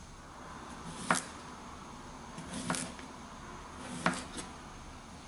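Kitchen knife slicing a cucumber on a plastic cutting board: three cuts about a second and a half apart, each a short scrape through the vegetable ending in a sharp tap of the blade on the board.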